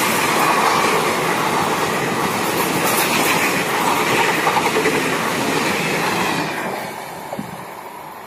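Indian Railways passenger coaches running past at speed close to the track: a loud, steady clatter of wheels on the rails that falls away about six and a half seconds in.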